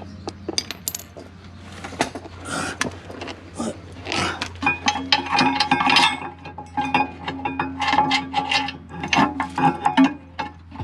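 Hand tools and metal brake parts clicking and clattering in quick runs of sharp clicks during work on a car's rear brakes.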